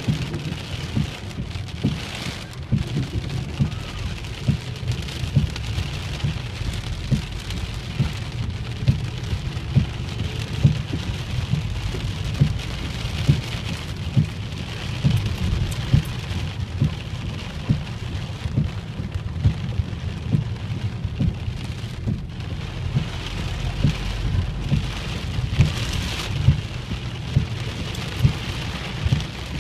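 Heavy rain drumming on a car's roof and windscreen, heard from inside the car: a steady hiss of rain with frequent, irregular dull thuds of heavy drops.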